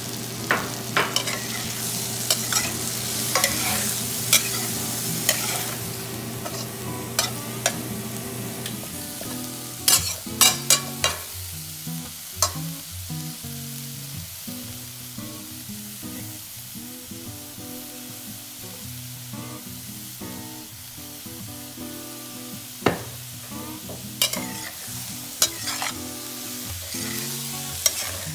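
Shrimp, corn, carrot and freshly added frozen peas sizzling in oil in a stainless steel pan as they are stirred with a metal spoon, which clinks and scrapes against the pan now and then. The sizzle is strongest for the first several seconds and then settles lower, and there is a quick run of clanks about ten seconds in.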